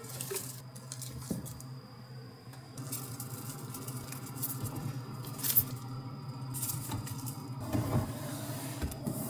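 Rustling and light handling noises from artificial plant leaves being hung and arranged, with a sharp click about five and a half seconds in, over a steady low hum.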